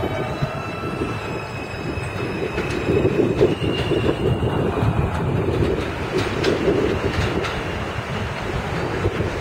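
An NYC subway M train of R160 cars pulling out of an elevated station and rolling away. The wheels rumble and click over the rail joints, with a faint high motor whine in the first few seconds.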